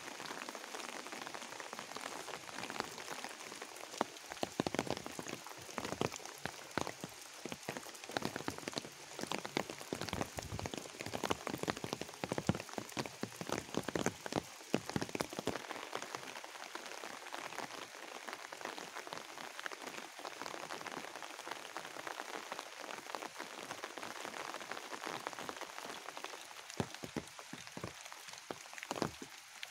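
Steady rain falling on a rice paddy and the banana leaves and grass around it: an even hiss, thick with the ticks of close drops hitting leaves.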